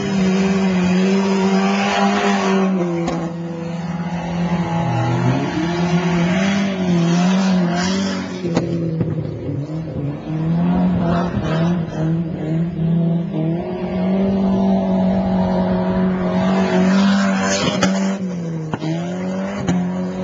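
Rally car engines revving hard on a dirt course, the pitch dropping and climbing again with each lift and stab of the throttle. Bursts of sliding tyres and sprayed dirt come a couple of seconds in, around eight seconds, and again near the end.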